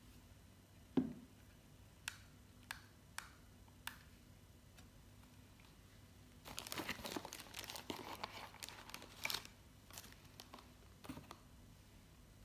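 Packaging being handled while a small white portable speaker is unboxed. There is a thump about a second in, then a few light clicks. From about six and a half seconds in, packaging crinkles for about three seconds, followed by a couple of light taps.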